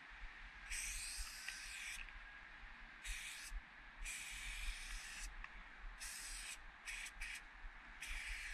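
Aerosol spray paint can hissing in repeated bursts as an outline is sprayed onto a brick wall: one longer spray about a second in, then several shorter sprays.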